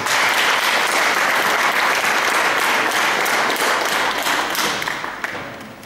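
Audience applauding, a dense, steady clapping that thins out into a few separate claps near the end.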